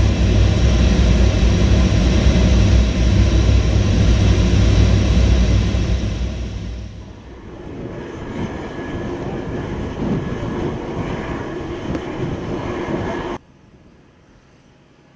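Loud, steady aircraft engine and wind noise in flight, with a deep rumble underneath. About seven seconds in it gives way to a quieter, steady turbine whine with a thin high tone, which cuts off suddenly near the end.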